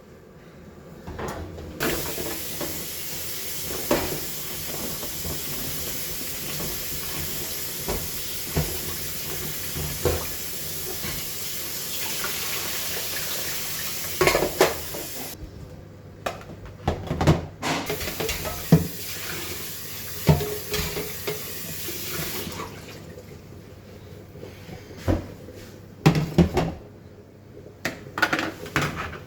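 Kitchen tap running into a sink while vegetables are washed under it, in two long stretches with a short break between, and scattered knocks and clatter of handling throughout.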